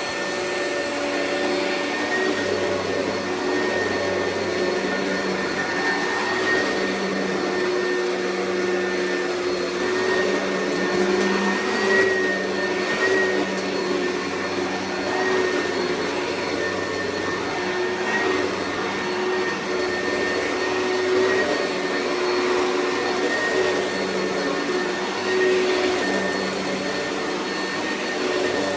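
Oreck vacuum cleaner running steadily: a constant motor hum with a high whine over the rush of air, swelling and easing slightly in loudness.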